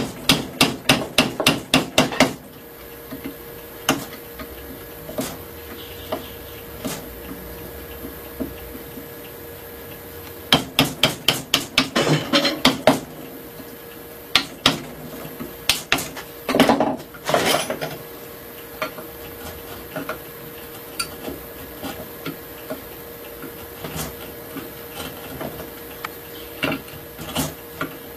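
Light, sharp tapping strikes on a wooden rebate plane as its mouth is trimmed straight. The taps come in three quick runs of several a second, about ten or so strikes each: at the start, around ten seconds in and again a few seconds later. Scattered single taps fall between the runs.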